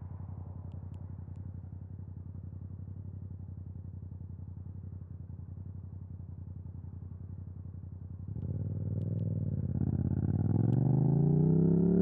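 Yamaha MT-07's parallel-twin engine through an Akrapovic exhaust with the dB killer removed, running at low, steady revs with an even pulse. About eight seconds in it gets louder as the throttle opens, and from about ten seconds in the revs climb steadily as the bike accelerates.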